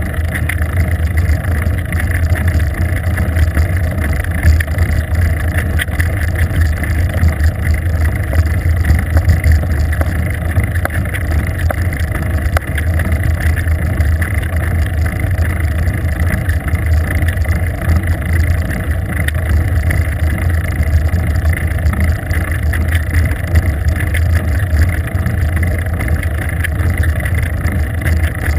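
Steady muffled rumble of wind and road noise picked up by a bicycle-mounted GoPro camera while riding along a paved road, heaviest in a low rumble.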